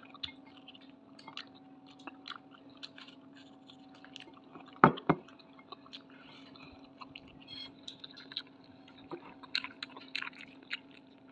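Close-miked mouth sounds of a person eating rice by hand: irregular wet chewing and small mouth clicks, with two louder sharp clicks about five seconds in.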